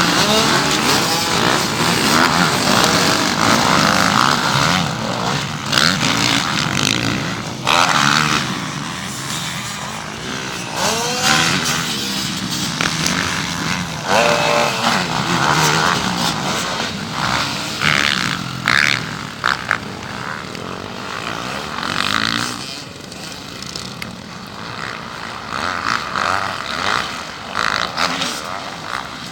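Motorcycle engines running and revving, their pitch rising and falling again and again.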